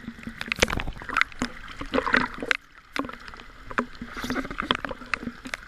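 Choppy sea water splashing and sloshing around swimmers and a handheld camera, with irregular knocks and clicks throughout and a brief lull about halfway.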